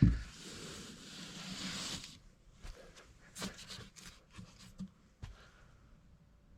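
Handling noises from hands working with wire and tools at an outlet box: a knock, then rustling for about two seconds, then a run of light clicks and taps.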